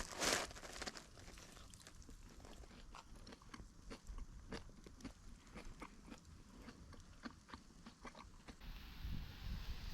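Wood fire crackling in a fire pit, with irregular sharp snaps and pops and a louder crunch at the start. Near the end it gives way to wind noise on the microphone.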